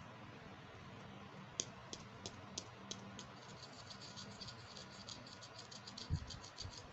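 A run of small, sharp clicks from a plastic toy makeup piece being handled: a few spaced clicks, then a quicker ticking of about seven a second, with one soft thump near the end.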